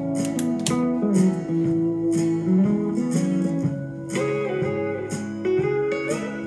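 Instrumental guitar music with no singing: plucked and strummed guitar, with held notes that bend and glide.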